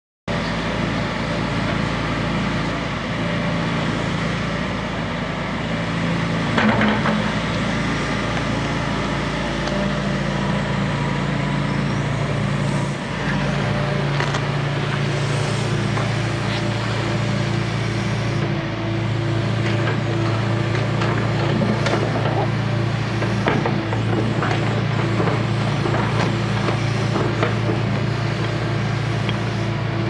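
Hitachi Zaxis 170W wheeled excavator's diesel engine running steadily as the machine digs, its note growing louder a few times as the boom and bucket work. Scattered knocks and clanks from the bucket working the soil, the loudest about seven seconds in.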